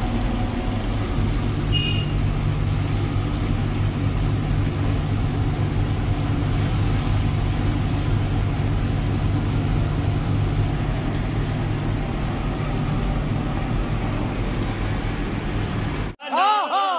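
Steady low mechanical hum with an even hiss over it, running without change. About a second before the end it cuts off abruptly and a man's voice takes over, chanting or singing from a different recording.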